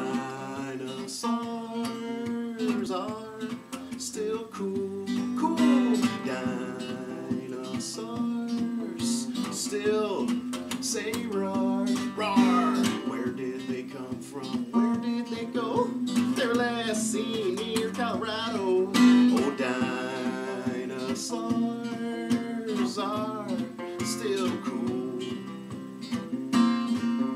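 Acoustic guitar strummed in a steady rhythm as the instrumental opening of a song.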